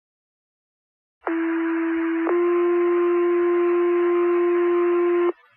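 Two-tone sequential fire pager alert heard over a dispatch radio channel. A first tone lasts about a second, then a slightly higher second tone holds for about three seconds and cuts off, with radio hiss. The tones alert the volunteer fire station to a call.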